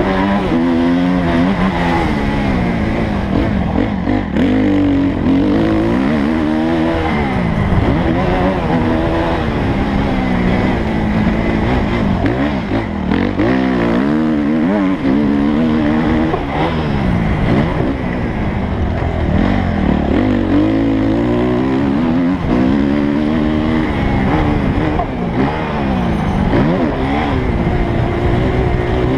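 Suzuki motocross bike's engine, heard close-up from the rider's helmet camera, revving up and falling back over and over as the rider accelerates, shifts and rolls off along a dirt track.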